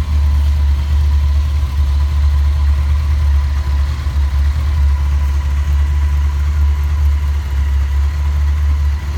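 1998 Honda CBR1100XX Super Blackbird's 1137 cc inline-four engine idling steadily, already warm.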